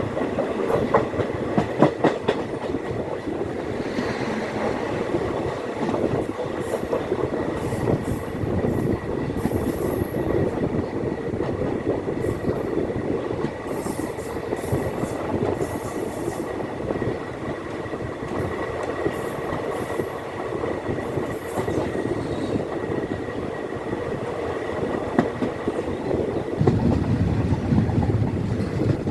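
Intercity express train running along the track: wheels clattering over the rails with a continuous rumble, and a thin, steady high squeal running through it.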